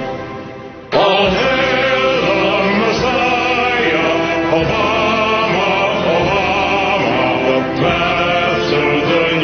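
A held chord fades, then about a second in loud music with singing voices in a chant-like style cuts in and carries on.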